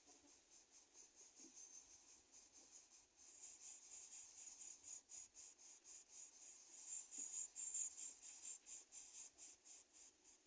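Faint, high-pitched insect chirping in a fast, even pulse. It grows louder about three seconds in and stops near the end.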